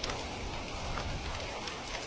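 Heavy rain: a steady hiss of rainfall with scattered sharp drop ticks and a low rumble underneath.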